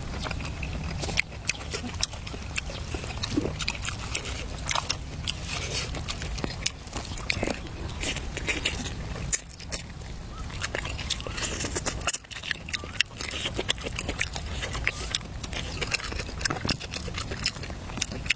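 Close-up chewing and crunching of food, with many short crackly clicks and smacks over a steady low rumble.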